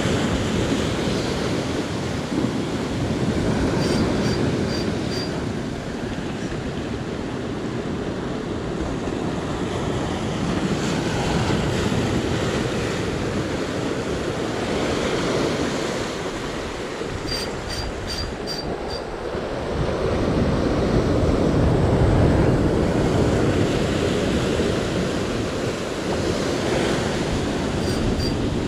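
Sea surf washing in and ebbing in swells every few seconds, with wind on the microphone. Three short runs of faint high ticks, a few a second, sound over it.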